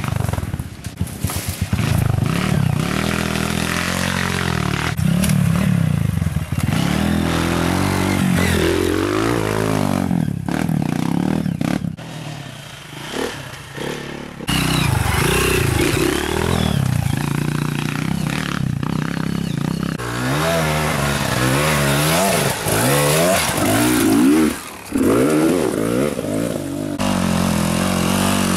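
Enduro dirt-bike engines revving up and dropping back in quick, repeated throttle bursts as they climb, with the engine sound changing abruptly a few times from one bike to another.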